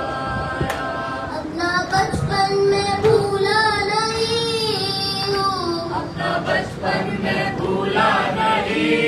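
A noha, a Shia lament, sung unaccompanied by a young boy into a microphone, with a group of men and boys singing along. Short strikes of hands on chests (matam) can be heard under the voices.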